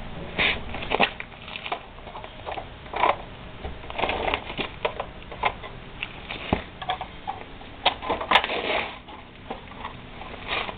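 Hand work on a Piaggio Ciao moped's plastic frame cover: a fastener being undone with a small tool and the cover being worked loose and pulled off, giving irregular plastic clicks, knocks and rustling, the sharpest click near the end.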